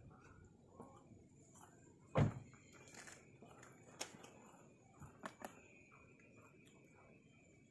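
Faint handling noise from a handheld phone camera: scattered light clicks and knocks, with one louder thump about two seconds in, over a quiet background with a faint steady high tone.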